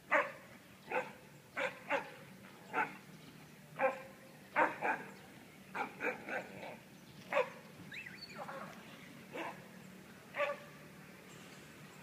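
A German Shepherd barking repeatedly: about fourteen short barks in twelve seconds, at uneven intervals, some coming in quick pairs.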